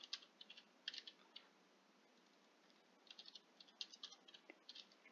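Faint computer keyboard taps and mouse clicks: a short run of key taps in the first second and a half, then a scatter of clicks in the second half.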